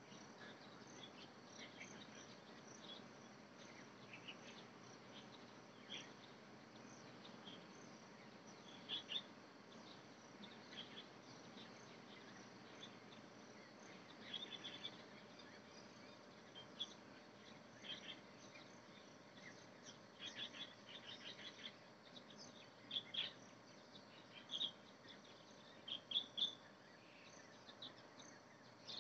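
Faint steady chirring of insects, with short high chirps scattered through, coming more often and louder in the second half.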